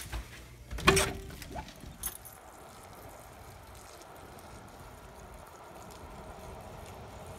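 Storm door being pushed open, with a sharp knock and a short squeak about a second in, then a few lighter knocks. After that comes a faint, steady outdoor hiss.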